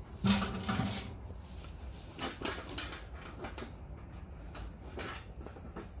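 Sticks of firewood being put by hand into a small steel wood stove, knocking and scraping against the metal firebox and its grate. The loudest is a clunk with a short ring about half a second in, followed by a few lighter clatters.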